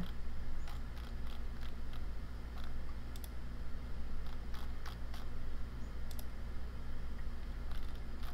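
Irregular computer mouse clicks, a dozen or so scattered through, over a steady low hum.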